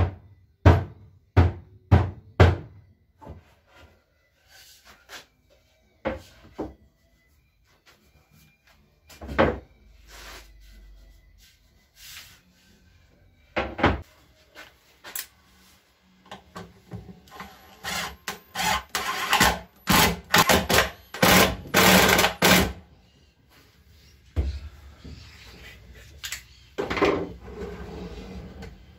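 Knocks on wood while a wooden drawer and its box are fitted together: a quick run of sharp knocks at the start and scattered single knocks after. A few seconds of dense, rapid clattering come in the second half.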